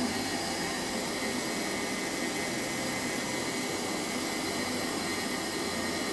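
Electric stand mixer running steadily, beating cheesecake batter, an even motor hum and whir with no change in speed.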